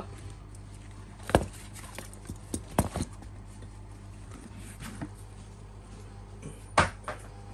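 Handling noise from a fabric tool bag and its metal strap ring: a few scattered sharp clicks and knocks, the loudest near the end, over a faint steady low hum.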